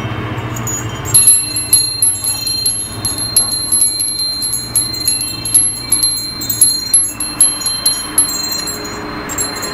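Japanese furin wind chime ringing in the wind: a run of quick, irregular strikes starting about a second in and thinning out near the end, each leaving a high ringing tone that hangs on.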